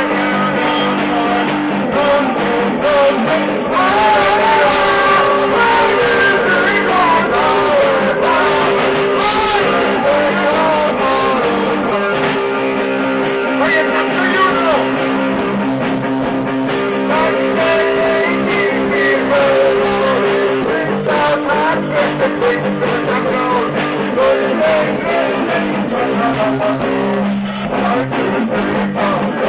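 A Christmas carol played live in a rock style: guitar over steady held chords, with a wavering sung melody above.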